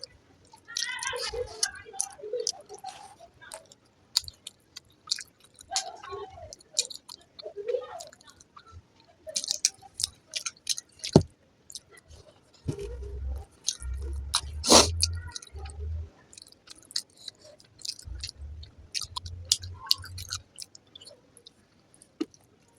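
Close-up eating: wet chewing and lip smacks of a mouthful of fried rice and egg curry, with many short clicks. Muffled low thumps come in two stretches in the second half.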